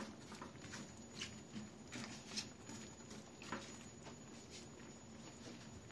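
Faint, irregular clicks and taps, about one a second, from cut taro stalks in a steel pot being pressed down with tongs.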